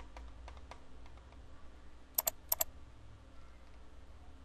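Computer mouse clicks: two quick pairs of sharp clicks a little past two seconds in, after faint light tapping in the first second.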